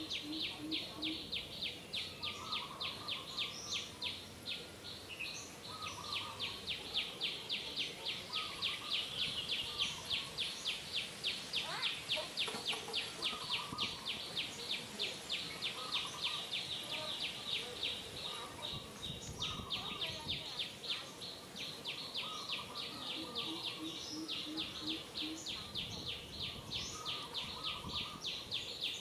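Insects calling in a steady, fast pulsing rhythm, about four pulses a second, with scattered bird chirps.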